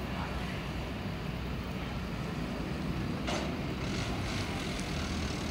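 Steady low outdoor rumble, with brief hissing gusts a little past three seconds in and again about a second later.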